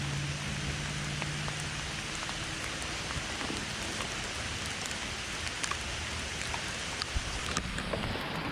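Rain falling steadily on leaves and the forest floor, with many scattered drops ticking.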